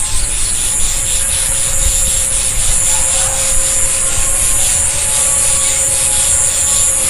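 Wind rumbling on a phone microphone, with a faint steady hum under it: the unexplained 'vu vu' humming that is heard in the sky all day. Over this runs a high-pitched buzz that pulses about four times a second.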